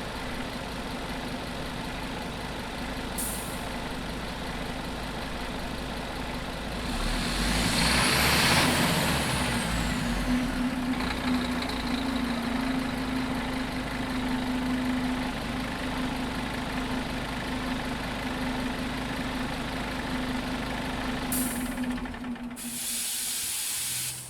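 Scania bus diesel engine idling inside a large metal shed, with a steady droning overtone of the engine reverberating off the metal walls. A loud hiss of released air swells about eight seconds in, and a shorter hiss comes near the end.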